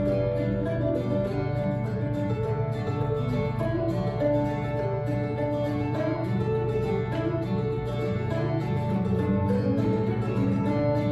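Instrumental break in a gospel song, led by strummed and picked guitar playing steady chords and a melody line with no voices, between sung verses.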